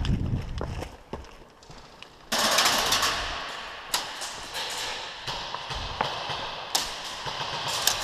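Footsteps and gear movement of a player walking into a large empty hall. About two seconds in a sudden rushing noise starts and slowly fades, with a few sharp clicks later on.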